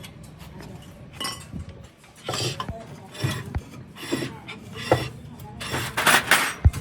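Hand work on a disc brake: a series of scraping, rasping strokes about once a second with metal clinks, and a sharp knock near the end.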